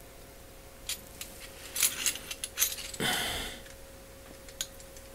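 Light metallic clicks and clinks of steel combination wrenches being handled and set down, followed about three seconds in by a brief scraping rustle and one more click near the end.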